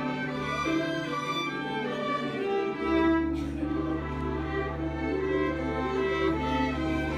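A string ensemble playing classical music with the violin leading. A low held note comes in about three seconds in.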